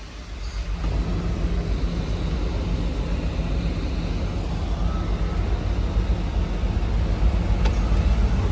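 Komatsu PC290LC-11 excavator's diesel engine running steadily with a low rumble, which builds up during the first second.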